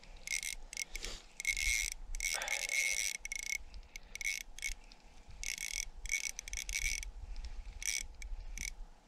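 Small ice-fishing reel being cranked in short spurts, its gears whirring with a high buzz, while a hooked crappie is reeled in. There are a couple of brief pauses in the cranking.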